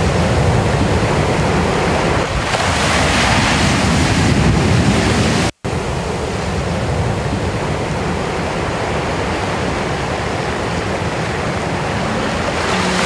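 Surf breaking and washing over a beach of dark rounded pebbles, with heavy wind noise on the microphone. The sound cuts out for a split second just past halfway, then a steady rush of wind and water carries on.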